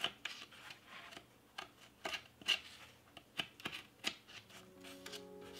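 Knife blade scraping dried modeling clay off a foam mannequin head: a run of irregular short scratches and small clicks as the clay flakes away. Music fades in near the end.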